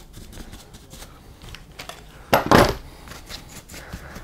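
Stiff bristle brush scrubbing over an RC buggy's plastic and metal chassis parts, with a run of light ticks and scrapes. About two and a half seconds in comes one louder clatter of parts knocking on the bench.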